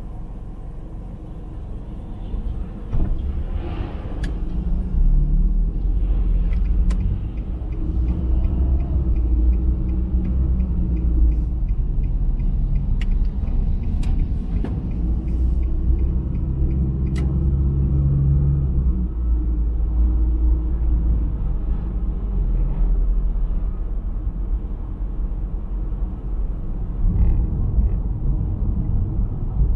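Car driving on the road, heard from inside the vehicle: a steady low rumble of road and engine noise that grows louder a few seconds in. A few sharp clicks stand out over it.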